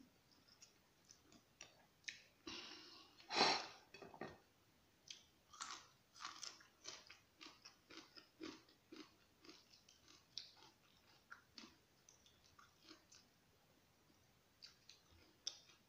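Close mouth sounds of a person eating yellow egg noodles: a long slurp about three seconds in, then chewing with many small wet smacks and clicks.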